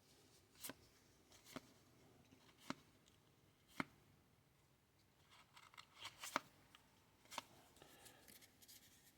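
Baseball trading cards being handled: single short card clicks about once a second, then a quick cluster of clicks and rustling as cards are slid over one another about six seconds in.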